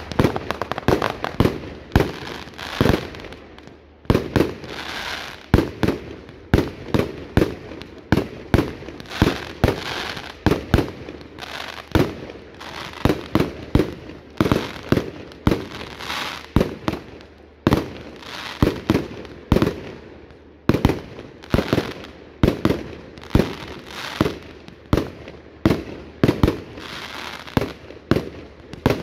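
Fireworks going off in a continuous barrage: sharp bangs about one or two a second, with crackling between them.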